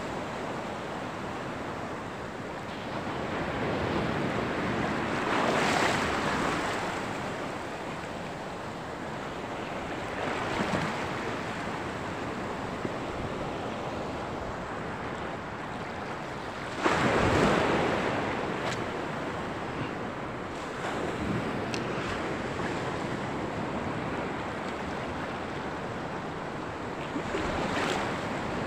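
Choppy sea water washing and splashing close by in surges, the biggest about halfway through, with wind buffeting the microphone.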